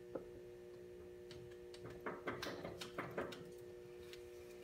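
Hands working a coolant hose and its clamp onto a radiator fitting: one small click at the start, then a scatter of light clicks and rustles in the middle, over a steady low hum.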